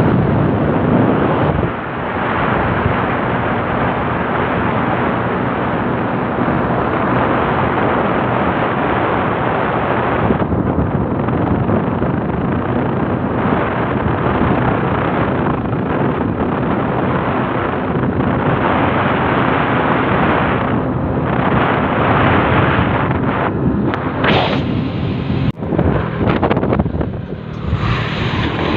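Heavy wind buffeting the phone's microphone while riding in an open vehicle, with an engine running steadily underneath. The wind noise dips and cuts in and out a few times near the end as the phone is moved.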